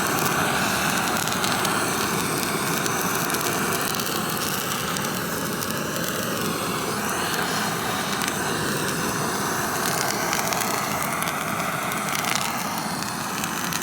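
Cooking fire with food on it: a steady crackling hiss.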